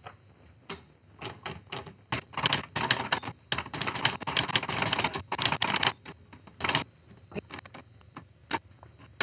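Brother portable manual typewriter being typed on: typebars striking the page in fast runs of clicks, densest through the middle, with scattered single strikes at the start and near the end.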